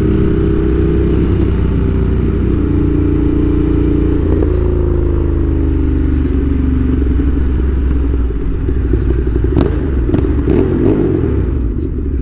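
Ducati Monster 1200 S's 1198 cc L-twin engine, heard from the rider's seat. It runs steadily at cruise, then about four seconds in its pitch falls over a couple of seconds as the bike slows. It settles into a rough, low-rpm twin-cylinder beat, with a few light clicks near the end.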